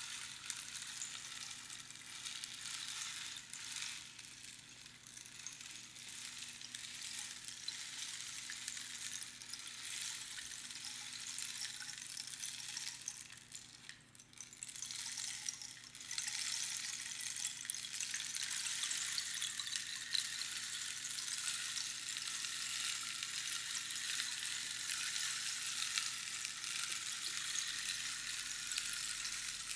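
Rainstick being tipped: small pebbles trickle down past the pins inside the hollow tube with a steady, rain-like patter. About halfway through the patter thins almost to nothing, then picks up again and runs a little louder as the stick is turned.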